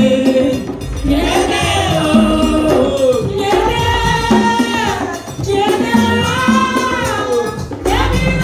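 Live Haitian rasin (roots) music: a group of men and women singing together over tall hand drums, in sung phrases a second or two long.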